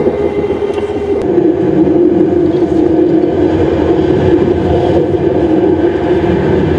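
Loud, steady rushing wind of a tornado with a low drone in it, a sound effect recreated for the film rather than recorded at the storm.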